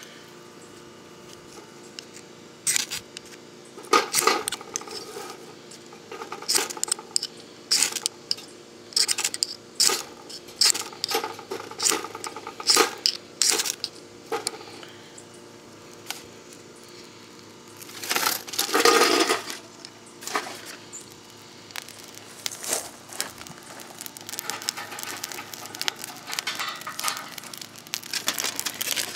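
Twigs snapping and aluminium foil crinkling as a small fire is lit and fed in a tin-can stove: a run of sharp, irregular snaps and clicks, with a longer crinkling rustle about 18 seconds in.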